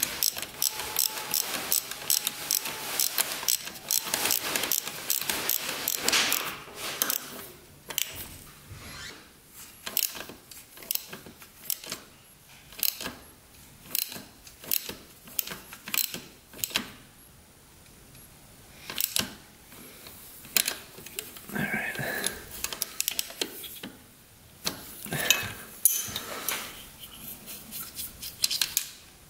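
Hand tools clicking and clinking on metal engine parts: a fast, dense run of clicks for the first six or seven seconds, then scattered single clicks and short clanks.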